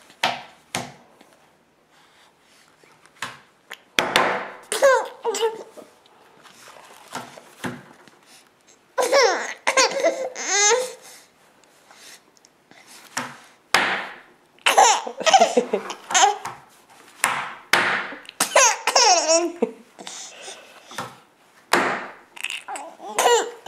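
A baby of about nine months laughing in repeated bursts of belly laughs and giggles, between sharp hand slaps on a table.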